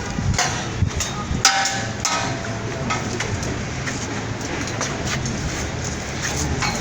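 Sharp metallic knocks early on, the two loudest, a little under a second in and at about one and a half seconds, each ringing briefly, over a steady low rumble.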